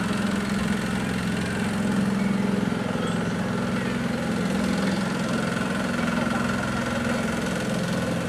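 An engine running steadily at an even speed: a low hum with a faint higher whine that grows a little stronger about halfway through.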